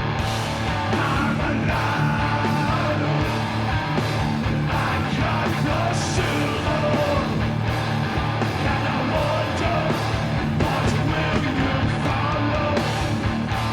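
Loud, heavy rock music with a full band and yelled vocals.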